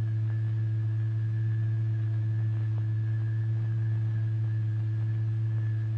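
A steady, unchanging low tone with faint higher overtones: the sine-like tone that drives the vibration setting the fluid's eddies in motion.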